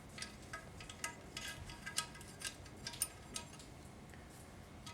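Small steel parts of a 4L60E automatic transmission clicking and clinking against each other as they are handled and set in place: about a dozen light taps, each with a brief ring, thinning out near the end.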